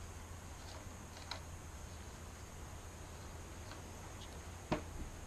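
Faint ticks of a screwdriver turning a 10-32 machine screw out of a sailboat mast base, with one sharper click near the end.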